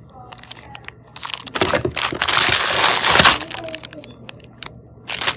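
Plastic packaging bags crinkling and rustling as they are handled and pulled out of the kit's box. The sound is loudest for about two seconds in the middle, and there is a short burst near the end.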